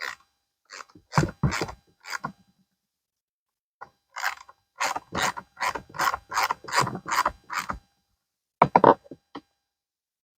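Ratchet clicking in short runs, with a steady stretch of about three or four clicks a second in the middle, as fasteners are driven during reassembly of a string trimmer.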